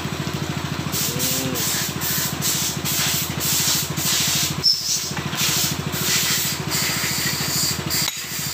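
Rubbing and scrubbing on a Honda CBR's rear brake caliper as it is cleaned: uneven rough strokes, starting about a second in, over a steady low machine hum.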